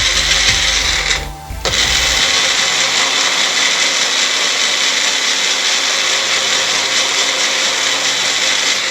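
Electric blender grinding garlic, ginger and a little water into a paste, with a steady high motor whine. It stops briefly about a second and a half in, then runs again and switches off at the end.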